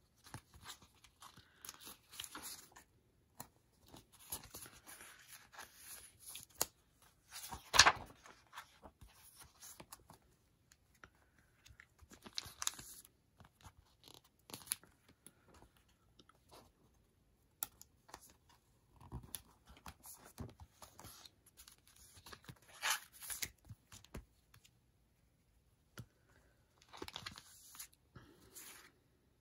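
Stickers being peeled off a sticker sheet and paper planner pages being handled and turned: on-and-off peeling, rustling and light taps, with one sharper crackle about eight seconds in.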